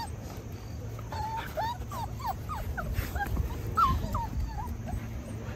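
Six-week-old Australian Labradoodle puppies whimpering and yipping: about a dozen short, high cries that bend up and down in pitch, in quick succession from about a second in until near the end.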